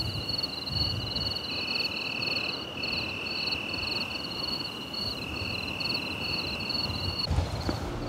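Several crickets singing together, with steady high-pitched trills and one fast pulsing chirp laid over each other, against low wind rumble. The insect song cuts off abruptly about seven seconds in.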